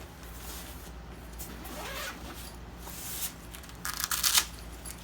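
Handling noise from an oscilloscope carry bag and its test leads: soft rustling, then a louder short rasp about four seconds in, over a steady low hum.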